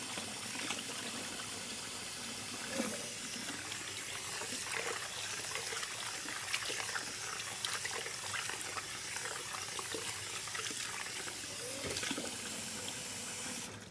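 Kitchen faucet's pull-down sprayer running cold water into a pot of cooked pasta shells in the sink: a steady hiss of spray with light splashing. The cold rinse stops the pasta cooking.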